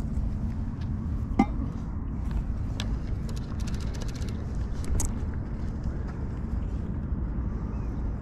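Wind buffeting the microphone, a steady low rumble, with scattered handling clicks: a sharp knock about a second and a half in and a quick run of small ticks a few seconds later.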